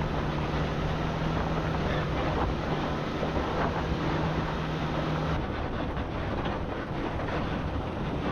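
Off-road vehicle driving over a desert trail: engine and tyre noise with wind buffeting the microphone. A steady low engine hum drops out about five seconds in, where the sound changes.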